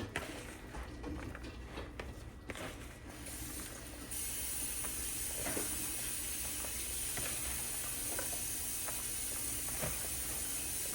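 Light clicks and taps of kitchen handling, with a steady hiss that comes in abruptly about four seconds in.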